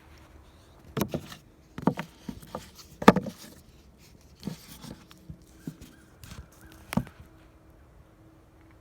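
Irregular knocks and handling sounds on wood, with sharp knocks about three seconds and about seven seconds in, from work at a plywood target to dig out a lodged bullet.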